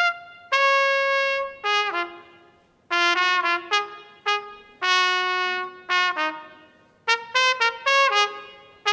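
Solo bugle call played on a brass horn: four short phrases of clear separate notes, a few of them held longer, with brief gaps between the phrases.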